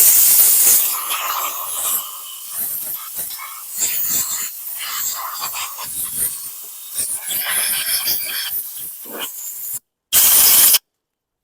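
Compressed-air blow gun blasting dirt off the mower's gas tank: a loud burst of air at the start, then uneven hissing as the air is played over the surfaces, and a short sharp burst near the end that cuts off abruptly.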